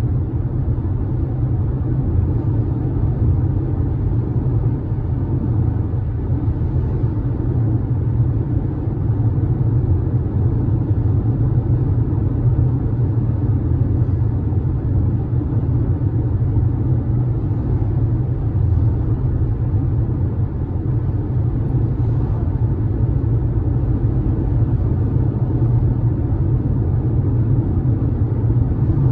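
Steady low rumble of road and tyre noise heard inside a car cabin while driving at highway speed.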